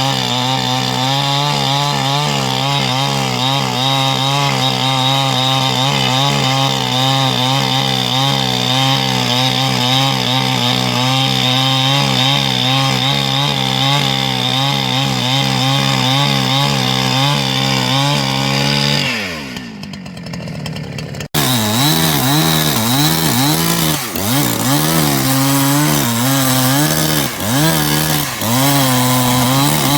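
Greencut GS750X 75cc two-stroke chainsaw running at high revs with a slightly wavering note. About two-thirds of the way through, the revs fall away as the throttle is released. It then cuts back in abruptly at full revs, with several brief dips in level near the end.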